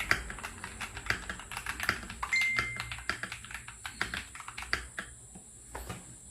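Typing on a mechanical keyboard: fast, dense keystroke clacks that thin out after about five seconds and stop near the end. A short steady high tone sounds briefly about two seconds in.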